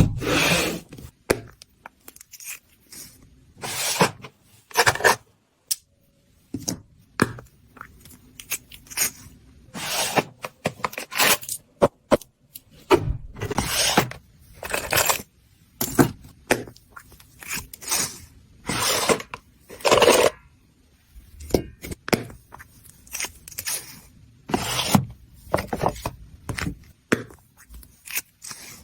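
Self-defense keychain set being handled: irregular clicks, scrapes and rattles of small hard pieces, with short pauses between them. No steady alarm tone.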